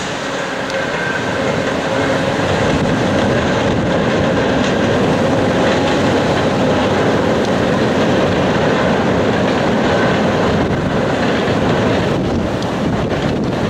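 Canadian Pacific train of EMD FP9A diesel locomotives and heavyweight passenger cars crossing a steel truss bridge, its wheels and engines running steadily on the bridge. It grows louder over the first couple of seconds, then holds.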